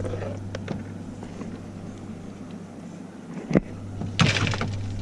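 A boat motor running steadily as a low hum. There is a single sharp knock about three and a half seconds in, followed by a brief rustle.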